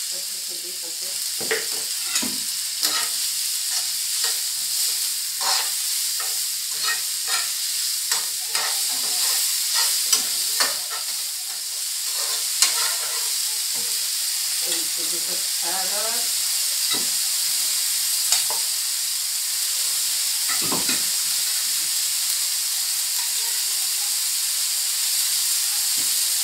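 Shrimp and sliced onions sizzling in hot oil in a ceramic-lined frying pan, with a spatula scraping and knocking against the pan as they are stirred. The strokes come often in the first half and less often later, over a steady sizzle.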